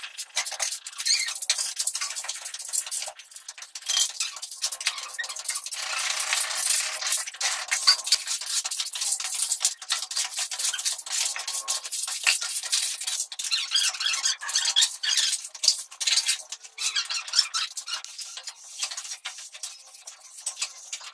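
Trowel scraping and spreading wet cement mortar during wall plastering: a dense, uneven run of rough scrapes and rubs, dotted with small clicks and knocks.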